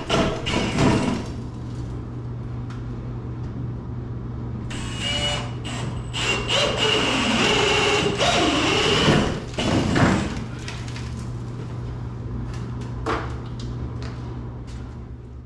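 Cordless drill boring through wooden floor joists with a 3/4-inch auger bit, the motor whining as the bit chews through the wood in several runs: at the start, about 5 s in and from about 6 to 9 s. A few sharp knocks follow around 10 s in.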